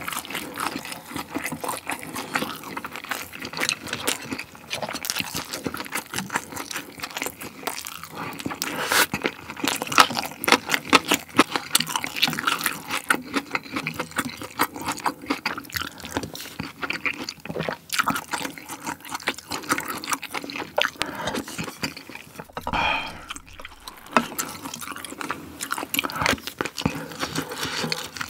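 Close-miked eating sounds: a person chewing with lip smacks and mouth noises. Later a spoon scoops kimchi jjigae, a liquid stew, from the pot.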